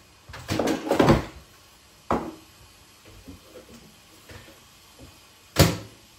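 Clatter and knocks as a pouch of microwave rice goes into a microwave oven, ending a little before the end with the microwave door shut with one sharp bang.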